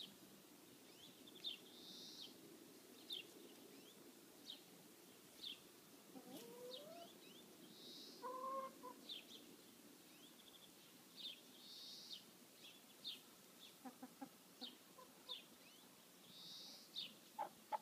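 Domestic hens clucking softly now and then, over small birds' short, high, falling chirps that repeat every second or so.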